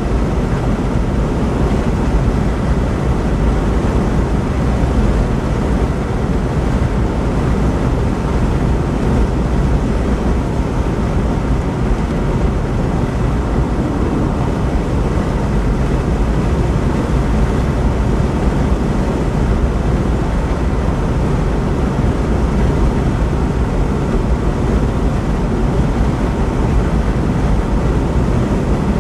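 Steady road noise of a vehicle driving at speed on a paved highway, heard from inside the cabin: an even rumble of tyres and wind, heaviest at the low end.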